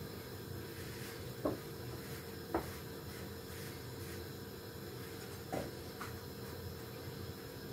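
Steady hiss of a gas hob burner under a frying pan, with a few brief scrapes as a flour tortilla wrap is pressed and turned in the dry pan, the loudest about one and a half and two and a half seconds in.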